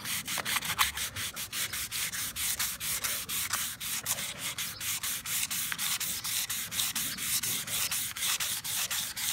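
Fine 280-grit sandpaper rubbed by hand over a rigid vinyl (PVC) door sill in quick, even back-and-forth strokes: the smoothing stage after a deep scratch has been sanded out with coarse grit, before polishing.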